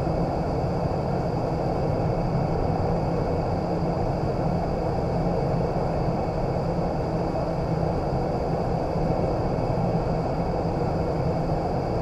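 Steady rush of air through the flight chamber of a vertical indoor skydiving wind tunnel, a constant deep roar with a faint steady high whine above it.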